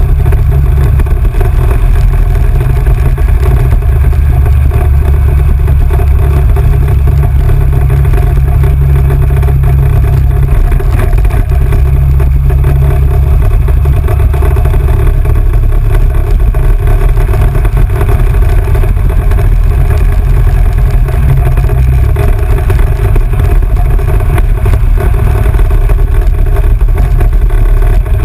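ATV engine running steadily while riding along a dirt trail, heard from on board: a loud, constant drone heavy in the low end with no clear changes in pace.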